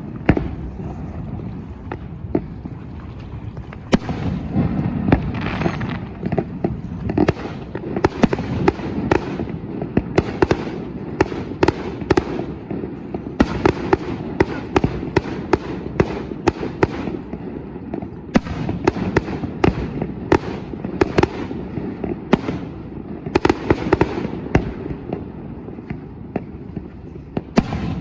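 Aerial fireworks shells bursting across a harbour: an irregular barrage of sharp bangs, at times several a second, over a continuous low rumble, thinning out near the end.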